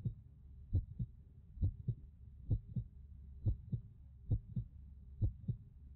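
Heartbeat sound in a music track: a lub-dub double thump repeating a little under once a second over a low steady hum.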